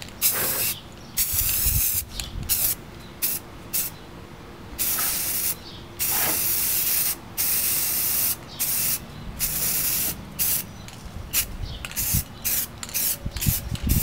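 Aerosol can of Rust-Oleum Gloss Protective Enamel spraying paint in a series of on-off bursts, some about a second long and many brief puffs, as a coat goes onto fan rings.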